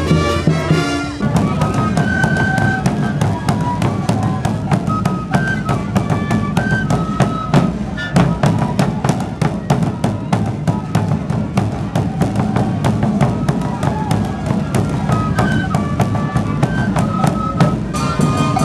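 Andean street-festival music: large double-headed bass drums (bombos) beaten with sticks in a fast, steady rhythm under a high melody of short held notes. About a second in, it takes over from a passage of brass-like band music.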